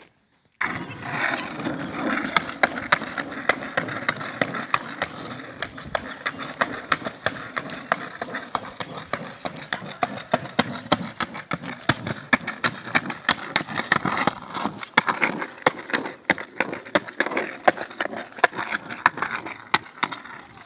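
Skateboard rolling over rough pavement: a continuous rumble from the wheels, dotted with many irregular sharp clicks and knocks.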